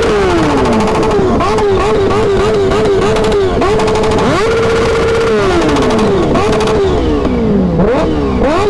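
Superbike engine revved hard several times: its pitch climbs to high revs and holds there, wavers rapidly at the top between about one and three seconds in, and drops off between blips.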